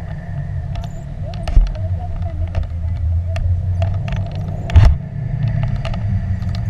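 Wind buffeting the microphone of a selfie-stick camera during a tandem paraglider flight: a heavy, uneven low rumble with a faint steady whistle. Scattered sharp clicks and knocks sound over it, with two louder thumps, one about a second and a half in and a stronger one about three-quarters of the way through.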